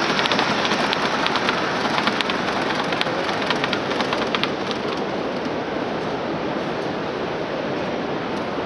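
Steady hiss of an exhibition hall's background noise, with a run of sharp light clicks over the first half that then die away.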